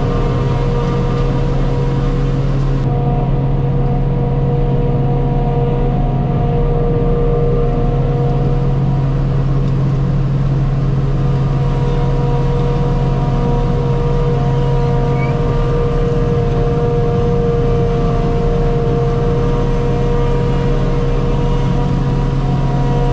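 Forage-harvesting machinery running steadily at constant speed while chopping grass, an even drone with a low hum and several higher steady tones.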